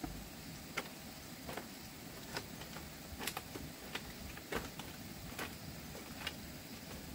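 Footsteps on a bamboo ladder and slatted bamboo floor: a string of light knocks and creaks, roughly one a second.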